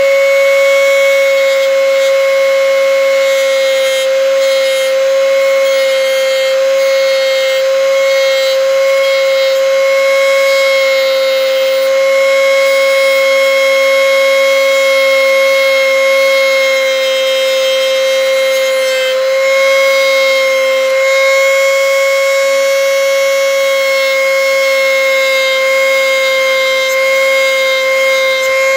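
Wahl Sterling 2 Plus cordless hair trimmer running, a loud steady whine that holds one pitch, dipping slightly about two-thirds of the way through.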